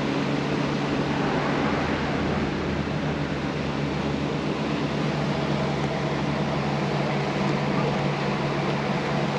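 Steady mechanical hum with a hiss of running machinery, unchanging throughout.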